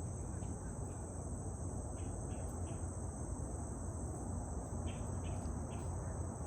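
Steady low rumble of constant highway traffic under a continuous high-pitched insect chorus. Two short runs of three quick chirps cut in, about two and five seconds in.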